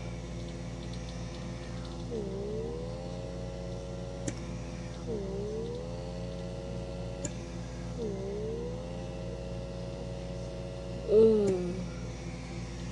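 Handheld electric pore vacuum's small motor whirring steadily. Three times its pitch drops sharply and then climbs back up over a second or so as the suction grips the skin, with a faint click in between.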